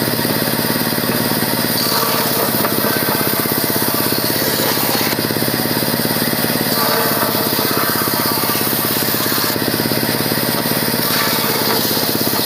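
A power tool running steadily with a fast, even rattling pulse, its tone shifting slightly a few times.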